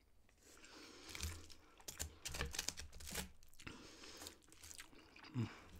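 Close-miked eating of noodles, with a fork scraping and crinkling an aluminium-foil plate in irregular crackles and clicks.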